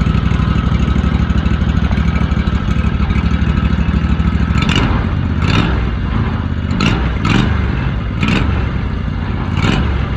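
Predator 670cc V-twin engine running loud through its stock muffler with the baffles gutted out, with an even, rapid exhaust beat. About halfway through, a series of about seven short sharp bursts comes at irregular intervals of half a second to a second and a half.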